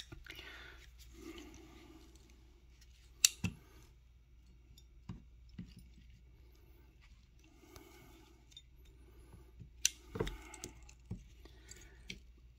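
Faint handling of 8-inch Duratech cobra-head water pump pliers: scattered sharp metal clicks from the jaws and push-button adjuster being worked, the loudest about three seconds in and again near ten seconds.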